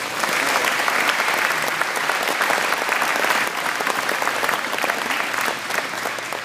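Audience applauding: dense, steady clapping from many hands that tapers off at the end.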